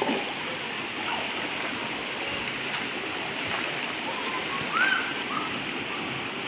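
River water flowing steadily, an even noise with no break, with a brief faint call about five seconds in.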